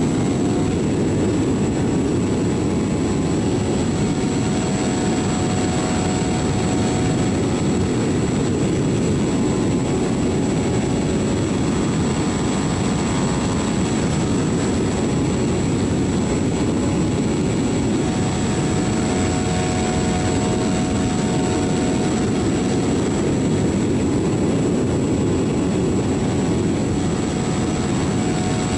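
RC model airplane's motor and propeller running steadily in flight, heard from on board under heavy wind rush.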